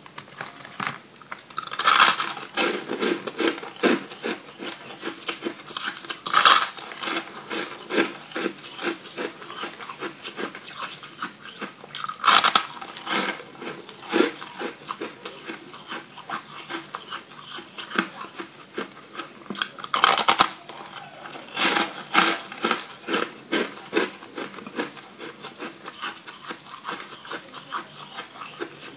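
Close-up crunching of frozen coloured sweet ice being bitten and chewed. Loud crunchy bites come four times, about two, six, twelve and twenty seconds in, with a steady run of smaller crackling crunches and chewing between them.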